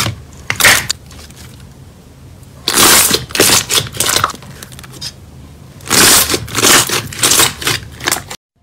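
Hands squishing and pressing blue slime, making wet crackling and popping. Two short squishes at the start, then two longer runs of crackling squeezes with quieter pauses between them.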